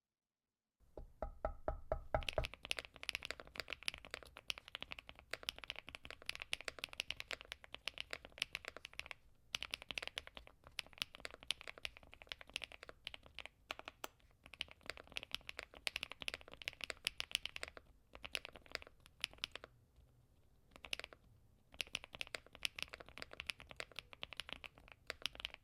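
Typing on a mechanical keyboard: rapid runs of keystroke clicks with a few short pauses.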